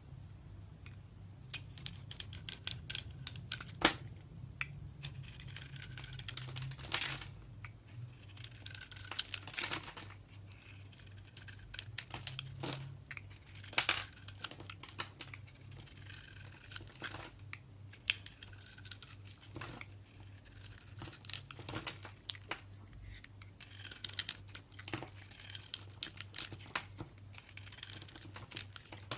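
Knife cutting through dry soap, with clusters of sharp crackling and crunching as the blade breaks through.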